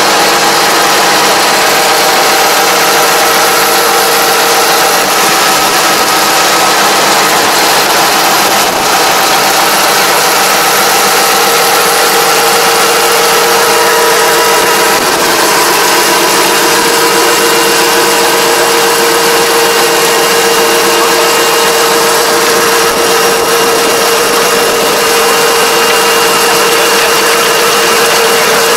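Tractor engine running steadily while it drives a rear-mounted Kobashi Gaia levee-plastering machine, whose rotor and disc are packing and smoothing mud into a paddy levee. A steady, even hum with a few held tones.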